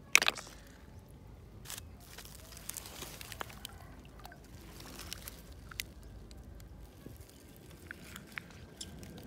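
A snail shell clacks sharply against the other shells in a bucket of snails just after the start. This is followed by soft squishing, small clicks and water trickling and sloshing as hands feel through shallow water and waterlogged plant stalks for snails.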